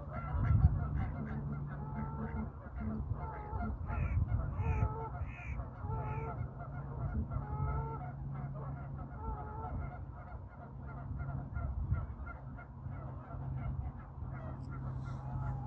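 Geese honking, many short calls overlapping and repeating, with a run of four higher calls about four to six seconds in, over a steady low hum.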